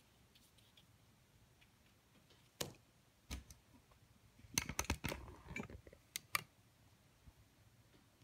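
Handling sounds: a few sharp clicks and light knocks, with a quick cluster of them about halfway through.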